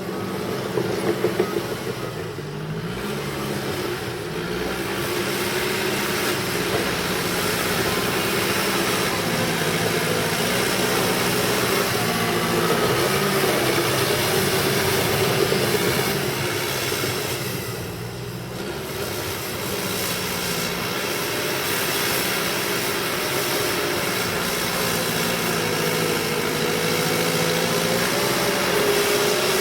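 Cat D5K crawler bulldozer working in mud, its four-cylinder diesel running steadily under load, with the engine note wavering up and down as the load changes. It eases off briefly about two-thirds of the way through, then picks back up.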